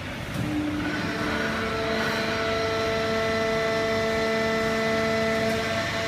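Automatic horizontal hydraulic paper baler and its feed conveyor running: a steady machine noise with several steady whining tones, a little louder from about a second in.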